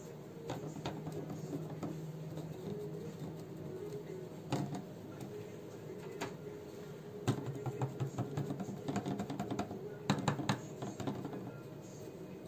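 Soft background music with steady held notes, over irregular light taps and clicks from a small paintbrush dabbing into a cast frame and the frame shifting on a wooden table, with a quick run of clicks from about seven to eleven seconds in.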